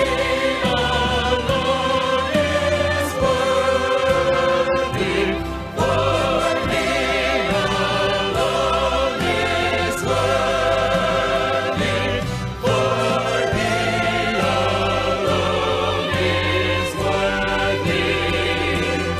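Gospel vocal group singing in harmony with instrumental accompaniment, the voices held with vibrato over a steady bass.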